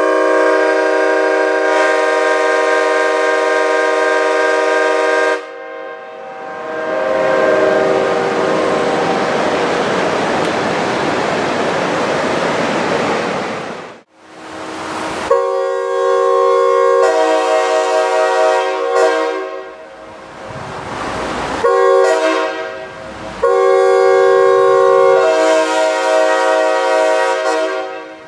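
Sand-cast Nathan Airchime K5H five-chime train horns blowing on compressed air: a held multi-note chord that cuts off about five seconds in, a long rushing hiss, then from about fifteen seconds a series of horn blasts of varying notes with short gaps between them.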